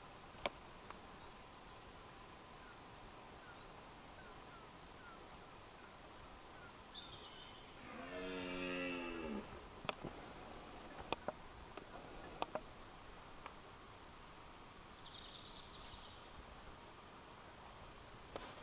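A red deer stag roaring once during the rut, a drawn-out bellow of about a second and a half midway through. Small birds chirp through the dawn chorus, and a few sharp clicks come just after the roar.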